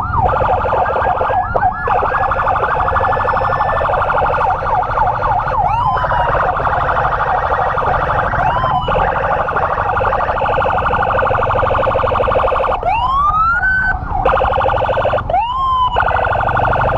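Emergency sirens of an ambulance convoy sounding continuously in a fast warble. A separate siren whoops up and back down four times. A low rumble of engine and road noise runs underneath.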